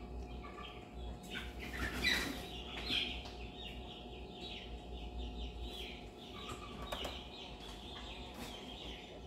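Twelve-day-old basset hound puppy squealing and whimpering while it is handled: a string of rapid, high-pitched squeaks, loudest about two seconds in. A single brief click comes near the end.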